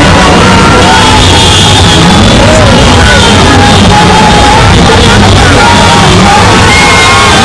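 Loud music with singing, with a crowd shouting and yelling over it.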